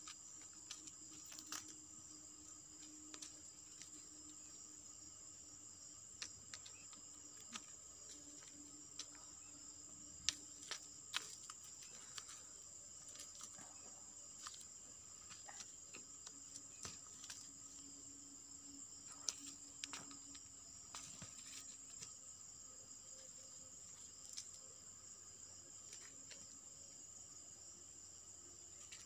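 Crickets chirring steadily in a high, continuous drone, with scattered faint clicks and taps throughout.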